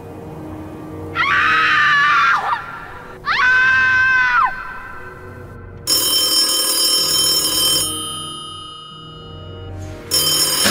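Two held musical notes, one after the other, then a telephone ringing: one ring of about two seconds that dies away, and a second ring starting near the end.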